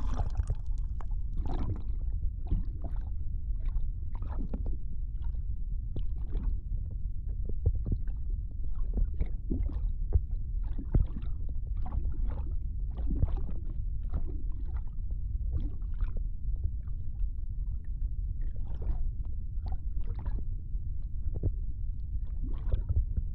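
Muffled underwater sound of a person swimming beneath the surface: a steady low rumble with many short, irregular bubbling and gurgling bursts.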